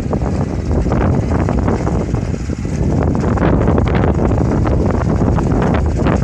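Rice transplanter's small engine running steadily, with wind buffeting the microphone.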